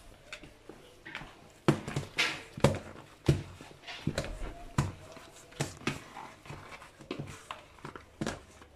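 Hands knocking back risen pizza dough in a plastic bowl: irregular wet slaps and squelches of the dough against the bowl, the loudest a run of sharp slaps about two to three seconds in.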